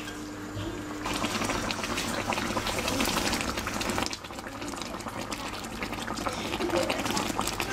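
Fish frying in a wok of spiced oil, sizzling and bubbling with a dense crackle that gets louder about a second in.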